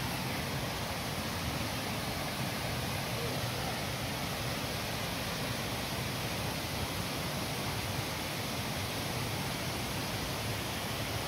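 Steady rushing roar of a tall waterfall, Pistyll Rhaeadr, falling below.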